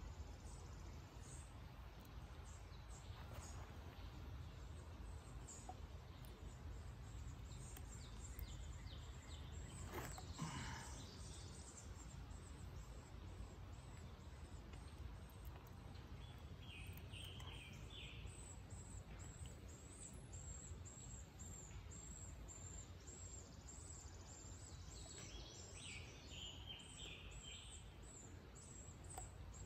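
Quiet outdoor background: a steady low rumble with birds chirping now and then. A brief louder call comes about ten seconds in, and a high chirp repeats a few times a second through the second half. A few faint clicks are also heard.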